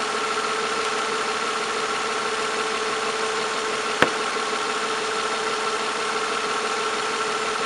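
2005 Nissan Altima's 3.5-litre V6 idling steadily under the open hood, a constant hum with a steady whine in it, while the A/C system is low on refrigerant and the compressor has not yet kicked on. A single sharp click about four seconds in.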